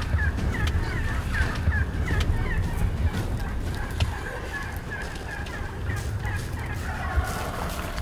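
Wild turkeys calling: a run of short, evenly spaced calls, about three a second, that stops about three seconds in and comes back fainter later, over a steady low rumble. A single sharp click about four seconds in.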